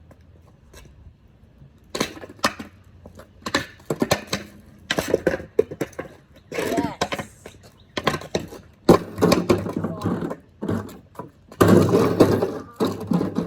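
Irregular run of loud bangs, whacks and clatters from a bucket, hockey stick and skateboard being banged on the ground, starting about two seconds in and growing denser, with a brief ringing tone near the middle.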